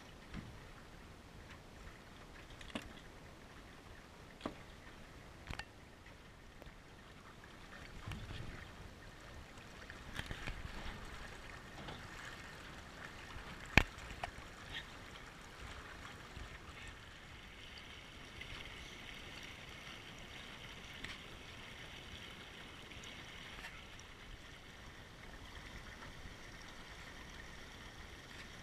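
Water washing and gurgling along the hull of a Fusion 15 sailing dinghy under way, a steady hiss. Scattered light knocks run through it, with one sharp knock about halfway through.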